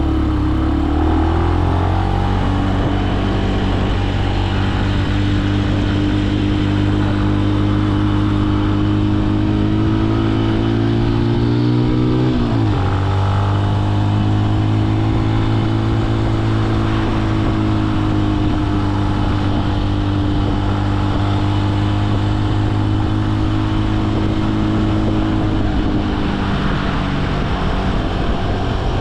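Benelli BN125's single-cylinder engine running under way at a steady cruise. The revs climb slowly, drop suddenly about twelve seconds in, then hold steady. Wind noise runs underneath.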